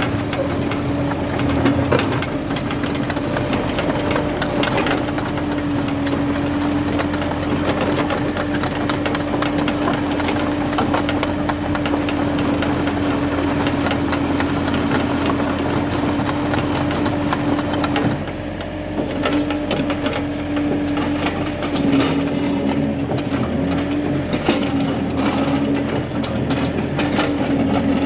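Excavator engine running steadily under work, with a constant hum and scattered clicks and knocks from the machine at work; the engine note dips briefly about two-thirds of the way through and wavers near the end.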